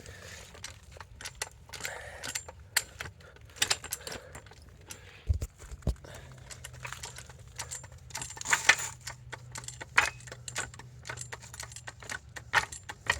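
Irregular metallic clicks, clinks and rattles as a car jack is set in place under the car's jacking point, with a couple of duller knocks about halfway through.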